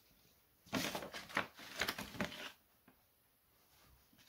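Loose saw chain clinking and rattling as it is handled against the chainsaw bar: a quick run of small metal clicks lasting about two seconds, one more click, then quiet.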